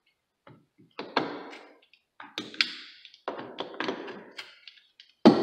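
Pliers gripping and pulling old carpet nails from a wooden stair tread: an irregular series of short metal-on-wood clicks and knocks, with the loudest knock near the end.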